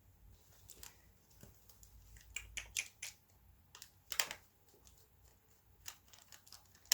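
Faint, scattered clicks and taps of small plastic parts and a screw being handled while the casing of an animatronic toy is screwed back together.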